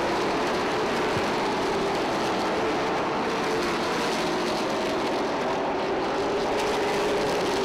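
A pack of pavement late model race cars' V8 engines running at speed around the short oval, a steady dense drone with no break.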